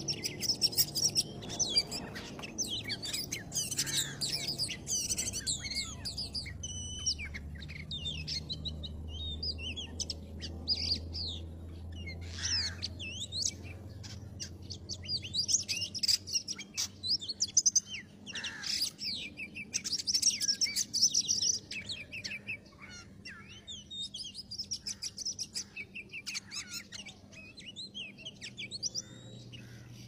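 Oriental magpie-robin song: a continuous stream of rapid, varied whistles, chirps and trills, loudest in the middle of the stretch.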